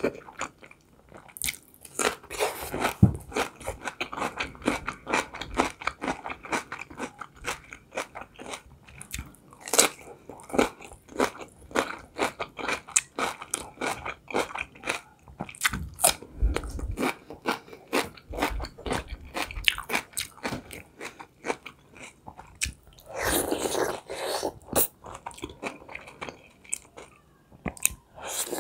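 Close-miked crunching and chewing of fresh cucumber: crisp bites followed by steady, wet chewing. Near the very end comes a bite into a soft boiled khinkali dumpling.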